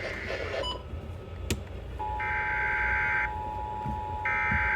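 Emergency Alert System tones for a severe thunderstorm warning. About two seconds in, the steady two-tone attention signal starts and holds. Over it, the screechy SAME digital header bursts sound twice, each about a second long.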